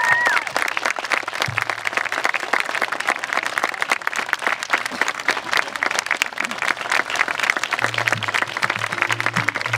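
A crowd of guests applauding, a dense steady patter of many hands clapping, with a cheer trailing off at the very start. Near the end, low sustained music notes come in under the clapping.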